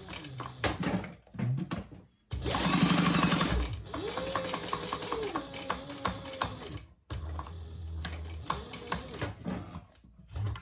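Sewing machine stitching in several runs with brief stops between. It makes a fast, loud run about two seconds in, then slower stitching with a motor whine that rises and falls, and ticks with each stitch.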